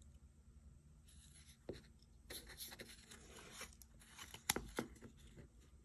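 Thin metal tuna can lid being pressed and bent by hand against a wooden board: faint scraping and rubbing with a few light clicks, the sharpest about four and a half seconds in.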